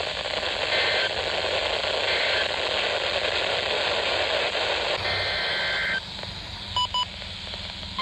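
Hissing, static-laden weather radio broadcast carrying EAS digital data bursts: short screeching two-pitch bursts about a second apart, the end-of-message signal closing a severe thunderstorm warning. About five seconds in comes a longer data burst, the header opening the next warning, followed by two quick beeps.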